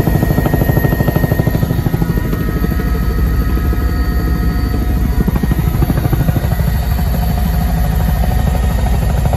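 Helicopter heard from inside the cabin: the fast, steady chop of the rotor blades with a steady whine above it, as the aircraft comes in low over its hangar to land. The sound thins a little about six seconds in.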